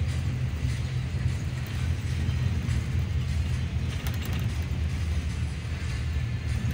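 Yutong bus driving along, heard from inside the cabin: a steady low engine and road rumble, with a few light rattles around the middle.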